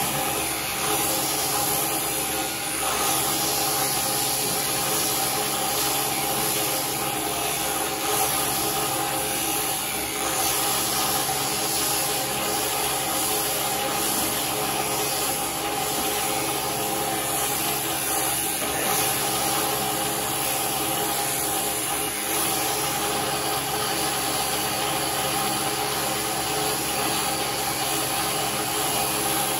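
Electric sheep shears running steadily with a continuous hum, clipping the fleece off a sheep.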